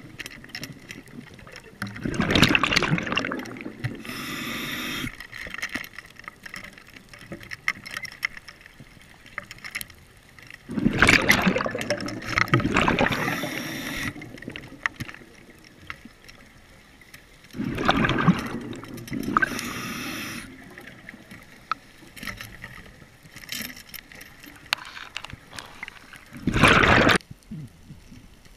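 Scuba diver breathing through a demand regulator underwater: four loud rushes of exhaled bubbles about every eight seconds, with the regulator's hiss on the inhales between them.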